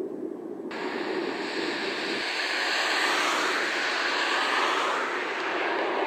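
Jet engine noise of an Airbus A330 on final approach with gear down: a loud, even rushing hiss with a steady engine whine, swelling over the first few seconds. It starts abruptly under a second in, cutting off a fainter low rumble.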